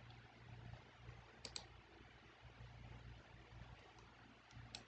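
Computer mouse button clicks over faint room hiss and a low hum: a quick double click about a second and a half in, and another near the end.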